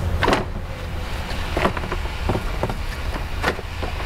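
Plastic radiator fan shroud knocking and scraping against surrounding parts as it is worked down into the engine bay, several short clunks and rubs over a steady low hum.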